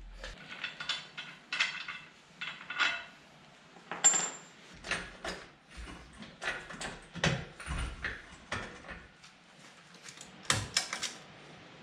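Metal hand tools and steel suspension parts clinking and knocking, a string of separate sharp clinks with a short high ringing note about four seconds in.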